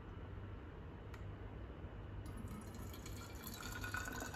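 Hot water poured from a kettle through a funnel into a glass bottle: a faint trickle and splash that starts about halfway in and grows toward the end.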